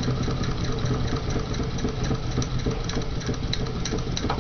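A three-cylinder Mamod toy live-steam engine running slowly and smoothly, with its flywheel fixed to the shaft. It keeps a steady, even beat.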